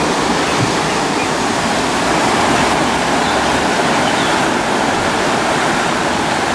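Fast white water rushing down a narrow concrete-walled mill stream, a steady, unbroken rush.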